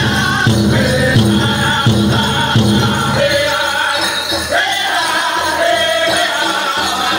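Powwow drum group singing high over an even drumbeat on a big drum, with dancers' bells jingling. The drumbeat softens about three seconds in while the singing goes on.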